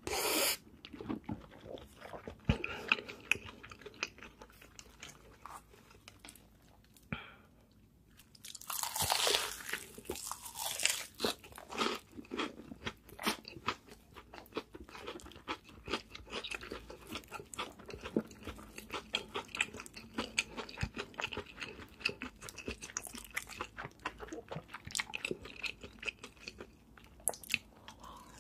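Close-miked eating: crunchy bites into crisp fried chicken coating and wet chewing, a steady run of small crackling crunches, with a longer burst of crunching about nine seconds in.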